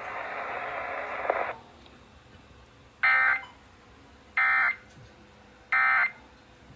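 Radio hiss that stops after about a second and a half, then three short, identical bursts of NOAA Weather Radio SAME digital data tones, about a second and a third apart: the end-of-message code that closes a broadcast.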